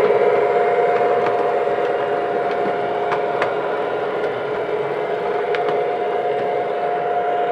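O-scale MTH Burlington Zephyr model train running on three-rail track: a steady hum with rolling noise and a few sharp clicks of the wheels over the track.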